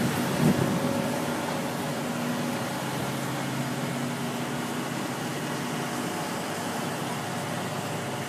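Steady drone of idling fire-truck engines, with a low even hum, slightly louder in the first second.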